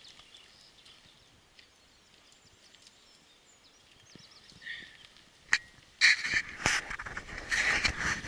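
Faint birdsong, a few short warbling chirps, over quiet outdoor air. About six seconds in, loud rustling and knocking starts close to the microphone as the camera is handled and turned round.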